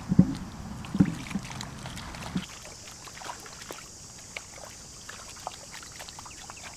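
Hands squelching and splashing in shallow muddy water, groping in the mud, with a few dull wet knocks in the first couple of seconds, then quieter small squelches and ticks. A faint steady high hiss joins about halfway in.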